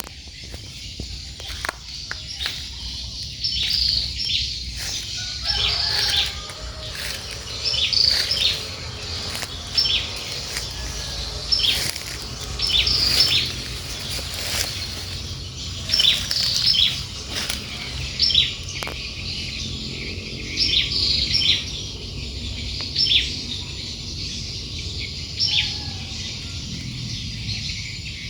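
A bird chirping over and over, short high calls coming every second or two, over a steady low background rumble.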